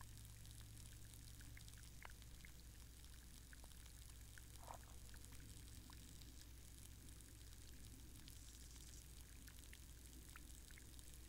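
Faint underwater sound of a mud puddle through hydrophones: scattered small clicks and ticks and one short bubbling sound about four and a half seconds in, over a steady low hum.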